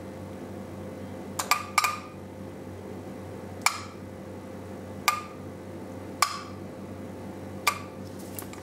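Bosch KE-Jetronic idle air control valve clicking sharply with a short metallic ring as its rotary slide is switched and snaps over. There is a quick cluster of clicks about a second and a half in, then single clicks roughly every one to one and a half seconds, over a steady low hum.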